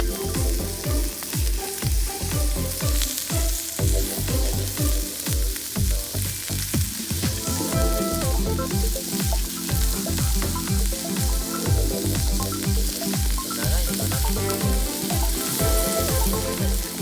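Background music with a steady deep beat, over food sizzling as it fries in a pan.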